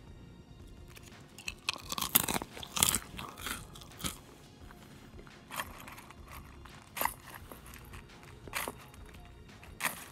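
Wooden chopsticks poking through dry Cheerios in a metal bowl: a burst of crunching, rattling clicks, then single sharp clicks every second or two.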